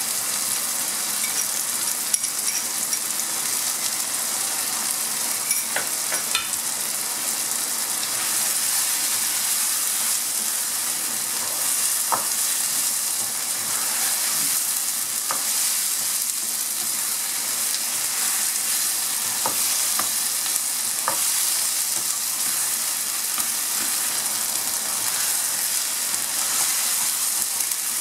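Onions, tomatoes and potatoes sizzling in oil in a nonstick wok as they are stirred with a spatula, with scattered clicks and scrapes of the spatula against the pan. The ginger-garlic paste just added is being fried until its raw smell goes.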